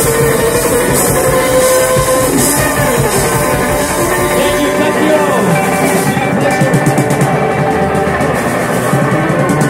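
Live rock band playing loud electric guitar over a drum kit, with cymbals crashing. A little before halfway the deepest bass drops out while the guitar and drums keep going.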